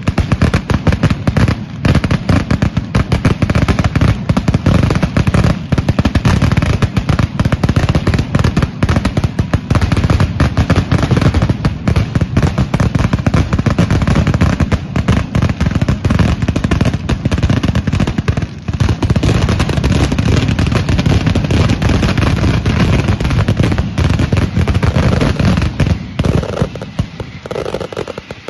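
Hermanos Caballer mascletà: a dense, unbroken barrage of firecracker bangs that starts abruptly and thins out a little near the end.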